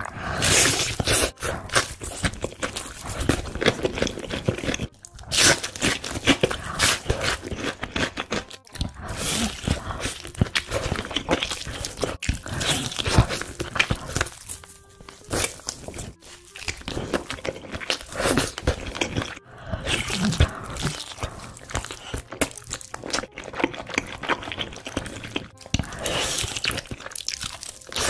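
Close-miked ASMR biting and chewing of crispy fried chicken: loud, crackling crunches of the battered crust, bite after bite, with chewing in between.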